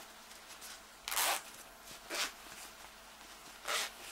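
Handling of a small cotton fabric pouch with a sewn-in zipper: three short rustles as the zipper is worked open from inside and the fabric is pulled through.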